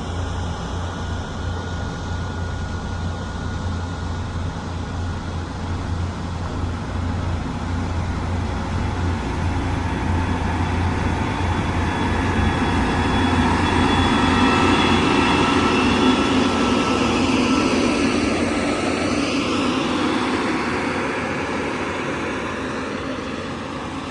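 Diesel engine of a heavy road-construction machine running under work. It grows louder to a peak past the middle and then eases off, with a deep low hum that fades about halfway through.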